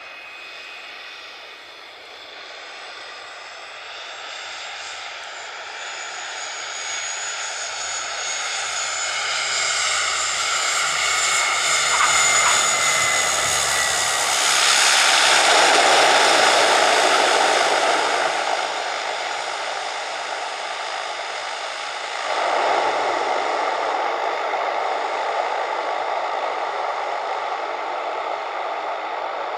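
De Havilland Canada DHC-6-300 Twin Otter floatplane's two PT6A turboprop engines growing steadily louder on approach, with a high turbine whine that slides slightly downward. It is loudest just after touchdown as propeller noise swells while the aircraft slows on the runway, and the propeller noise surges again about 22 seconds in.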